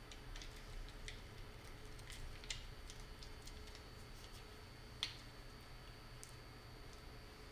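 Faint scattered clicks and light taps from small wire and plug parts being handled, with one sharper click about five seconds in, over a steady faint high whine and low hum.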